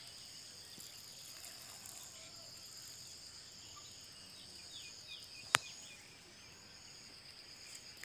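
Steady, high insect trill in the background, with a few faint, short falling bird chirps about four to five seconds in. A single sharp click comes about five and a half seconds in.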